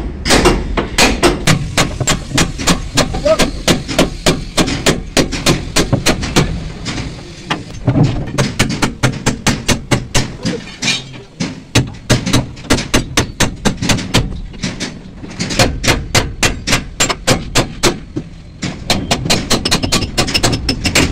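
Hammer blows on the steel bell-crank suspension assembly of a Tata 4825 truck, sharp metal strikes at about two to three a second, in runs broken by short pauses.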